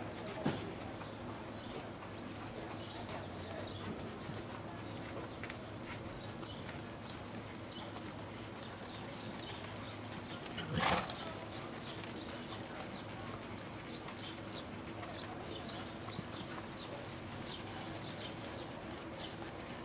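Outdoor horse-show arena ambience: horses loping on the dirt, with faint hoofbeats, high bird chirps and a steady low hum. About eleven seconds in there is one short, loud, noisy burst.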